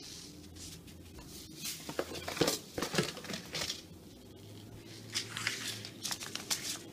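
Handling noise: rustling and light knocks of shopping items being handled and set down, with paper seed packets near the end.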